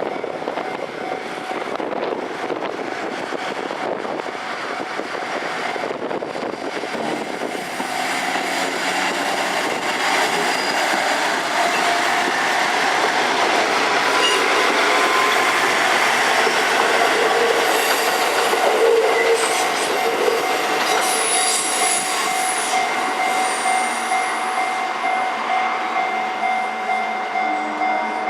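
JR Central KiHa 11 two-car diesel railcar running slowly over the rails into the depot, its engine and wheels rumbling steadily and growing louder towards the middle. In the later part the wheels give a steady high squeal.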